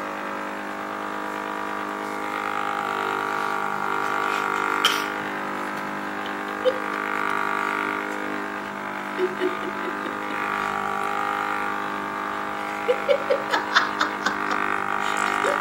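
Handheld electric massager buzzing steadily against a small child's back, its drone swelling and easing a few times, with short squeals and giggles from a toddler in the second half.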